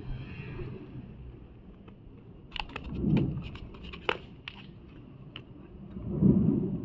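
Two people sparring at speed with training daggers: a quick run of sharp clicks and knocks in the middle, with dull low thuds around three seconds in and again near the end.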